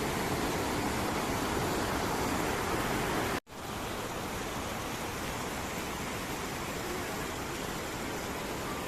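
Waterfall's water rushing in a steady, dense noise, cut off for an instant about three and a half seconds in and coming back slightly quieter.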